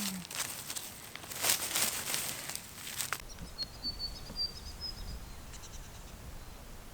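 Rustling, crinkling handling noises with light clicks, then a steady outdoor background in which a small bird gives a quick run of high chirps lasting about a second and a half.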